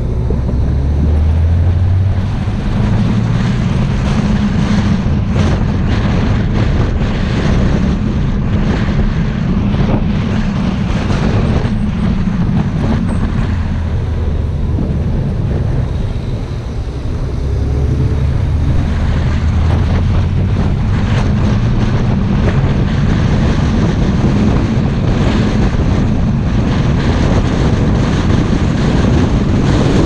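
Car driving with steady road and wind noise on the microphone over a low engine hum. The engine's pitch rises about a second in and again just past halfway, as the car accelerates out of hairpin bends.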